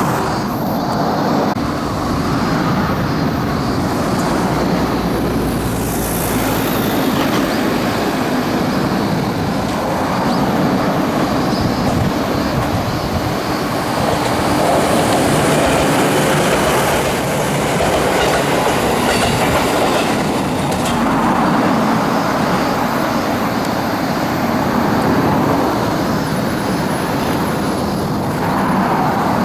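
Electric multiple-unit train running along the track: a steady, continuous rolling noise, a little louder around the middle.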